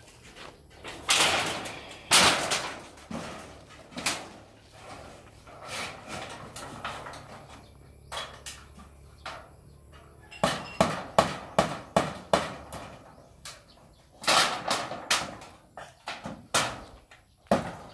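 Corrugated galvanized iron sheet being handled and struck: irregular metallic knocks and bangs. Two loud bangs come about one and two seconds in, then a run of sharp strikes about three a second around the middle, and another cluster near the end.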